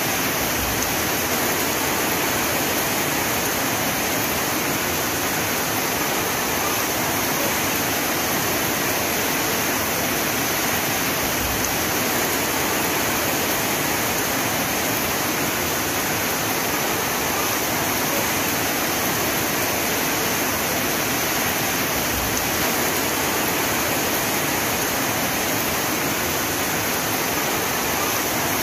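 Heavy rain falling, a steady, even hiss with no breaks or single drops standing out.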